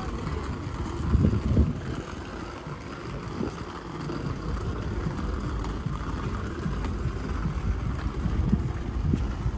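Low rumble of wind buffeting the phone's microphone over outdoor street noise, with a louder gust about a second in.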